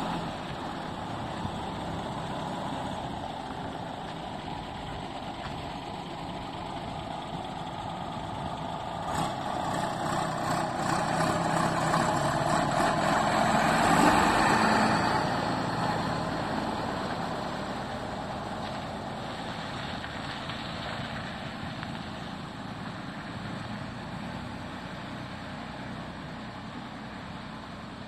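Valmet farm tractor's diesel engine pulling a low-bed trailer past, growing louder to a peak as it passes about halfway through, then fading as it drives away. A few knocks sound around ten seconds in.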